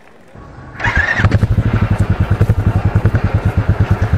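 Motorcycle engine catching a little under a second in, then idling with a fast, even pulse.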